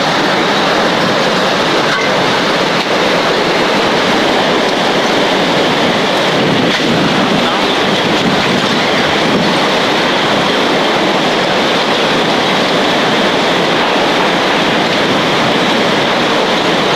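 Hurricane wind and driving rain: a loud, steady rushing noise that does not let up.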